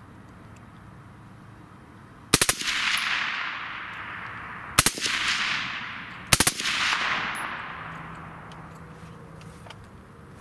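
Suppressed Texas Black Rifle Company M4 in 5.56 with a Griffin Armament Recce 5 suppressor firing three short full-auto bursts of a few rounds each, the first about two seconds in. Each burst is followed by a long echo that fades over a couple of seconds.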